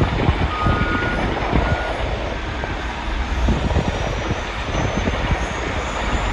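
Outdoor winter field sound: wind buffeting the microphone over a steady low rumble, with a few faint short beeps in the first two seconds.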